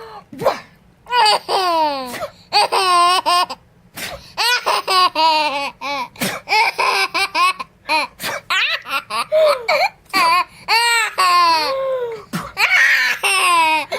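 Seven-month-old baby laughing and giggling in rapid runs of high-pitched bursts, broken by short pauses.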